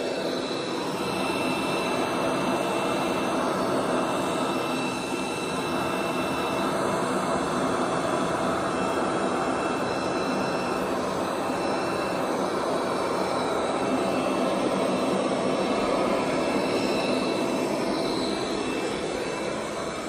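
Bagotte BG800MAX robot vacuum cleaner running on carpet: a steady whir of its suction fan and brushes with a thin, high, steady whine over it.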